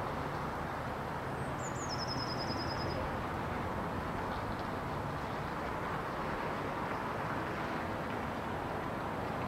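Steady outdoor background rumble with a low hum. About a second in, a small songbird calls once: a couple of high falling notes that run into a quick trill of repeated notes, lasting under two seconds.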